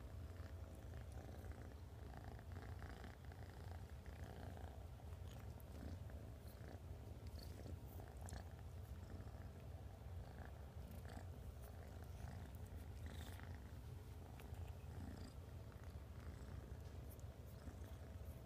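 Kitten purring steadily, a low continuous rumble, with small scattered clicks over it.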